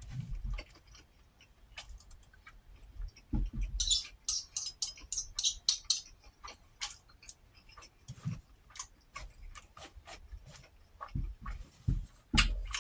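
Close-miked eating: chewing with wet mouth clicks and smacks, a run of crisp crunching bites about four seconds in, and a few dull low thumps.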